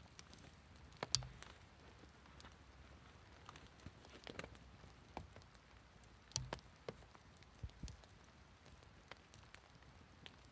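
Faint, irregular clicks and soft taps a second or more apart, the sharpest about a second in and another about six and a half seconds in, over a quiet hiss.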